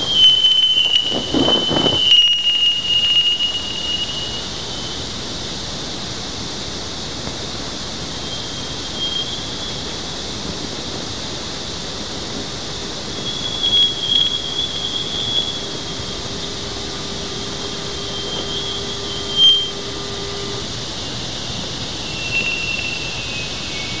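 Voyager 2's 1979 plasma-wave recording from Jupiter's outer magnetosphere, converted to audio: a steady hiss with a thin high whistle that wavers and drifts slightly lower. A low steady tone comes in about halfway and stops near the end. The high-pitched waves near the end are cosmic rays changing the density of the plasma.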